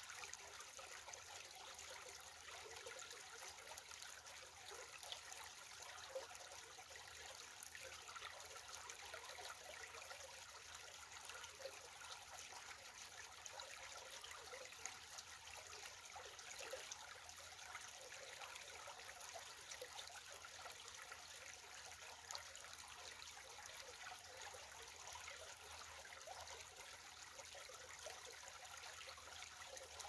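Shallow stream trickling over stones and gravel, faint and steady.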